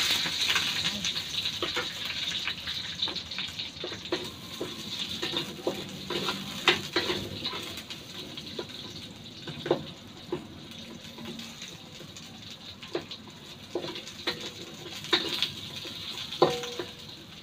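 Chopped onion sizzling in hot oil in a steel wok, stirred with a wooden spatula that knocks and scrapes against the pan in many short clicks. The sizzle is loudest at the start, just after the onion goes in, and settles to a quieter steady hiss within a few seconds.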